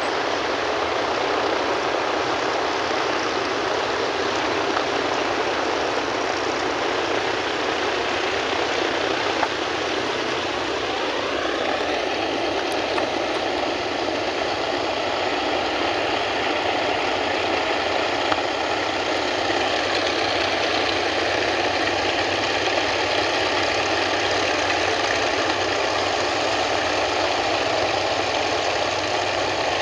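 Martin Mars flying boat's four radial piston engines and propellers running while its hull plows through the water with a steady rush of spray. About ten seconds in, the engine pitch rises and then holds steady.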